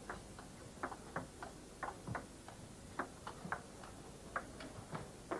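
Table tennis rally: the ball clicks off the table and the players' bats in quick alternation, about three hits a second at an uneven pace.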